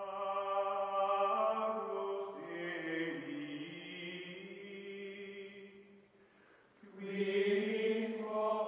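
Music of sustained, choir-like voices chanting long held chords. It fades almost away about six seconds in and swells back about a second later.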